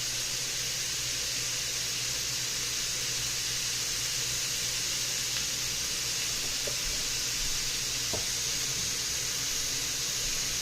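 Ground beef and onions sizzling in a frying pan: a steady hiss with a faint tick or two.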